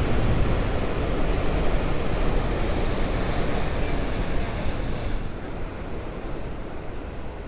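Big winter surf breaking: a loud, even roar of rushing water that eases about five seconds in, with wind buffeting the microphone.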